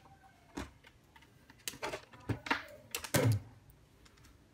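Irregular sharp plastic clicks and taps, several in quick succession, from handling a DT9205A digital multimeter and its test leads while it is set up to measure resistance.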